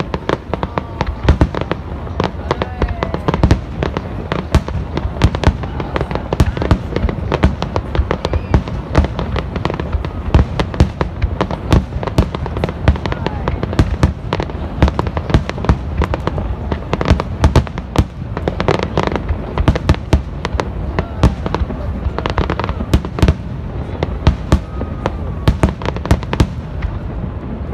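Aerial fireworks display: a dense, unbroken barrage of shells bursting, many sharp bangs every second over a steady low rumble.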